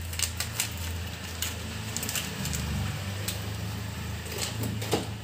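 Light scattered clicks and taps from a plastic measuring spoon knocking against a dry iron kadai as ground spices are tipped in, over a low steady hum.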